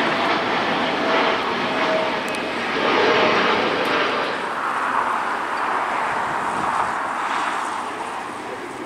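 Jet engines of an Airbus A320 airliner rolling on the runway and taxiing after landing: a steady broad rush with a faint hum, easing off over the last few seconds.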